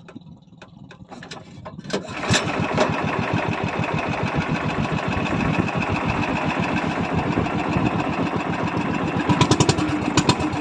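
A small fishing boat's engine comes on suddenly about two seconds in and runs steadily with a fast, even chugging, after a couple of seconds of faint clicks.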